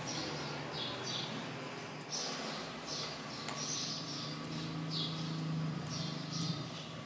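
A bird chirping over and over, short falling calls about once or twice a second, over a low steady hum.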